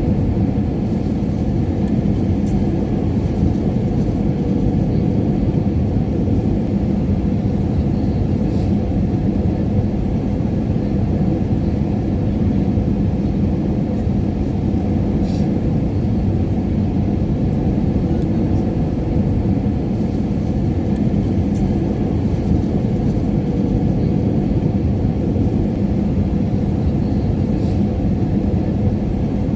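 Airliner cabin noise in flight: a steady, deep rumble of engines and rushing air with a faint low hum, unchanging throughout.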